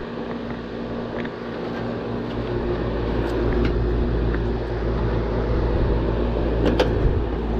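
Outdoor air-conditioner condensing unit running, its compressor and condenser fan humming steadily, working normally after its defective capacitor was replaced. A couple of sharp clicks near the end.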